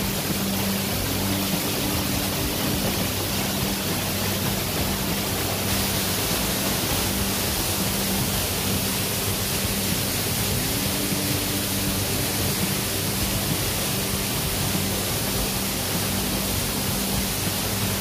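Waterfall: water falling down a rock face and splashing below, making a loud, steady, even rushing hiss.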